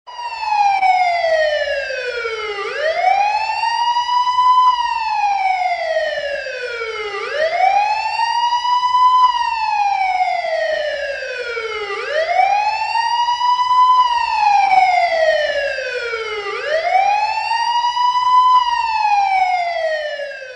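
Siren wailing: its pitch rises quickly, then falls more slowly, in a steady repeating cycle of just under five seconds, about four times over.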